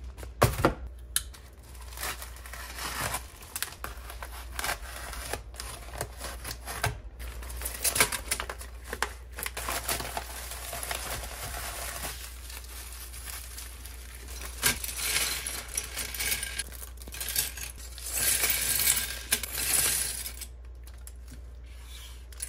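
Mailers and plastic bags of LEGO bricks being opened and handled: paper and plastic crinkling and tearing, with loose plastic bricks clicking and rattling against each other. A steady low hum runs underneath.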